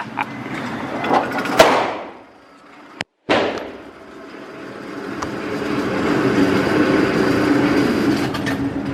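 Motorized range target carrier running along its overhead track, moving the paper target: a steady running rumble that builds to its loudest over several seconds. A sharp knock comes about a second and a half in.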